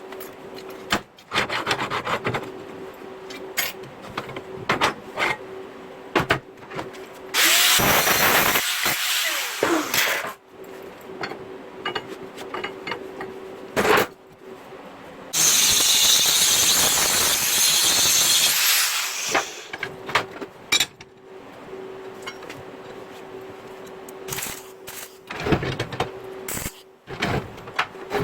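Metalworking in a workshop: a power tool runs in two loud stretches of a few seconds each, the second one harsher and higher. Between them are scattered clicks and knocks.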